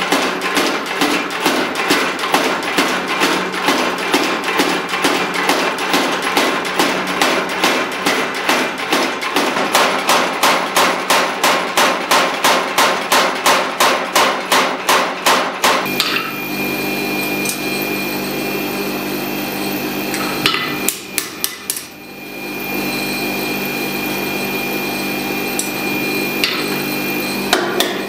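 Steel hammer striking a red-hot damascus billet on an anvil, a steady run of blows at about two to three a second that stops about sixteen seconds in. After that a steady hum remains, with a few sharp metal clinks.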